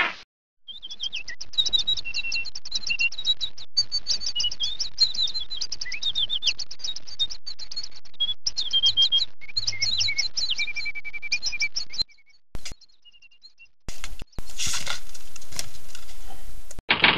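A flock of small birds chirping busily, many quick high chirps overlapping, for about eleven seconds. The chirping stops; after a short lull with a click, a steady rushing noise runs for about three seconds near the end.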